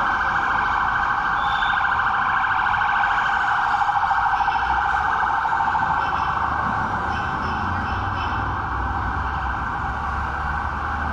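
Emergency-vehicle siren sounding continuously in a fast, rapidly pulsing warble, with a low traffic rumble beneath.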